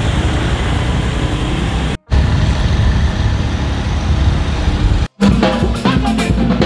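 Wind and road noise from riding on a motorcycle taxi in traffic, cut off briefly twice. About five seconds in it gives way to mendjang xylophones struck with mallets, played with drums.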